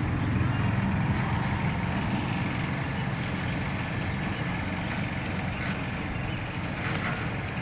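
Steady low rumbling outdoor noise, with a few faint brief sounds in the second half.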